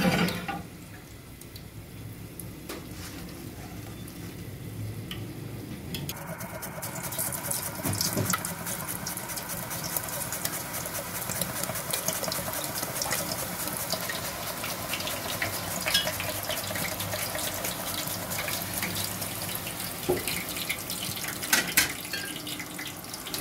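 Green plantain slices deep-frying in a pot of hot oil: a dense sizzle full of fine crackles that starts suddenly about six seconds in and then holds steady. A knock at the very start.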